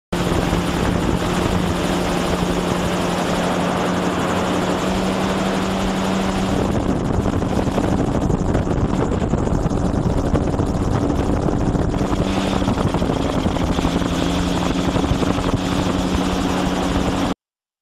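Steady mechanical engine drone with a low hum, like an aircraft overhead; the hum's pitch shifts about six seconds in and again near twelve seconds, and the sound cuts off abruptly near the end.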